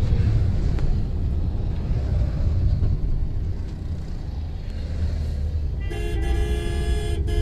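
Twin-engine jet airliner climbing overhead, a low steady rumble. About six seconds in, a vehicle horn sounds for about a second and a half with short breaks.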